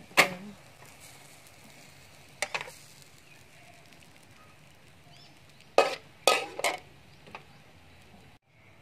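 A metal spatula scraping and knocking against a wok and plate as a fried omelette is lifted out of hot oil, over a low sizzle from the oil. A few sharp clatters, the loudest a quick cluster of three about six seconds in.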